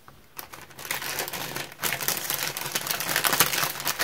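Small plastic bags of rhinestones crinkling as they are handled. The crinkling starts about half a second in and grows louder and busier after about two seconds.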